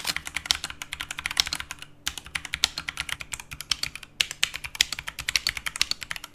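Typing sound test on a Fantech Atom series mechanical keyboard: rapid, dense keystroke clacking, with brief pauses about two and four seconds in.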